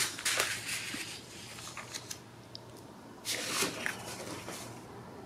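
Sheets of scrapbook paper rustling and crinkling as they are lifted, shuffled and restacked by hand, with a louder rustle at the start and another about three seconds in.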